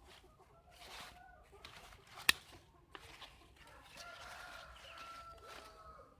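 Chickens clucking and a rooster crowing faintly in the background. A single sharp click comes about two seconds in.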